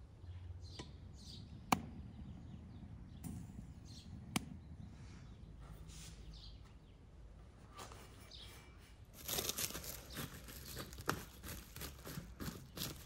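Plastic wrap crinkling and rustling as it is peeled off a bowl of risen, sticky dough; this is the loudest and densest part, starting about two-thirds in. Before it come softer cloth rustles as a towel is lifted off the bowl, and two sharp clicks in the first half.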